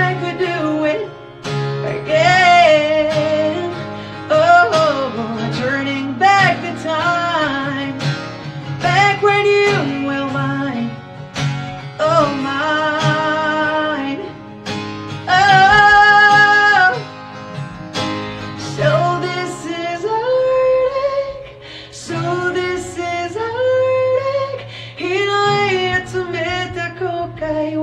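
A man singing in a high voice to acoustic guitar accompaniment, holding a long note about sixteen seconds in.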